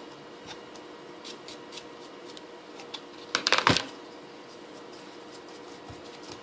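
Hard drive and its drive tray being handled: scattered small clicks, with a short burst of loud clicking and rattling about three and a half seconds in. A faint steady hum runs underneath.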